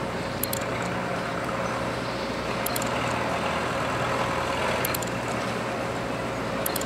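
Steady drone of dockside engines and machinery running during the unloading of a train car from a ship, with a constant mid-pitched whine and a few faint, sharp clicks.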